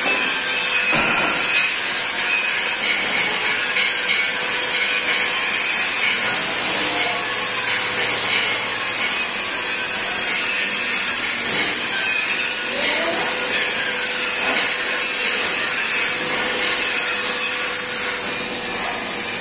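Steady, loud high-pitched hiss of a power tool working steel in a metal fabrication shop, with a few scattered knocks.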